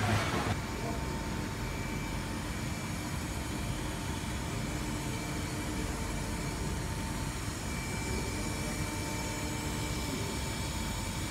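Extrusion coating line for paper running: a steady machine hum and rush with a few thin, steady whining tones over it. A short louder swell comes right at the start.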